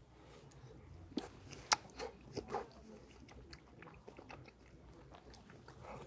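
A person chewing a mouthful of baked puff-pastry apple turnover, with two sharp clicks a little over a second in and a few soft crunches just after.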